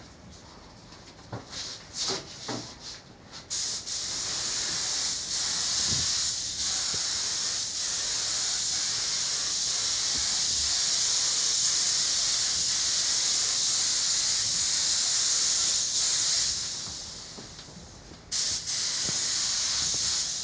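Paint spray gun spraying: a few short bursts, then a steady high hiss held for about thirteen seconds that fades off, and a second long spray starting again near the end.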